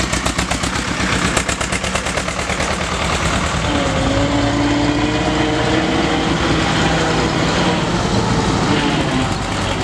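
Bizon Z056 Super combine harvester's six-cylinder diesel engine running as the combine drives past close by, with a steady whine joining in about four seconds in. At the start, the quick firing pulses of a passing tractor's engine fade out.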